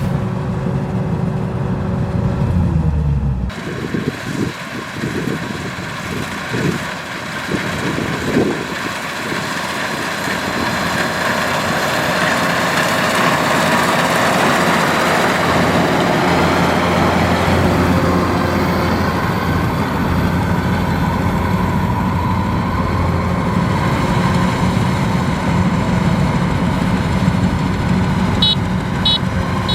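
Kubota DC-93 rice combine harvester running: a steady engine drone mixed with the noise of the working machinery. The sound changes abruptly about three seconds in.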